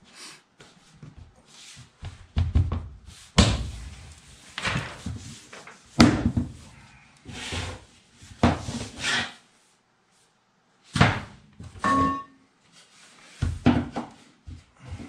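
Laminate flooring planks being handled, set down and knocked into place on the floor: irregular hard knocks and thumps, with a pause of about a second near ten seconds in.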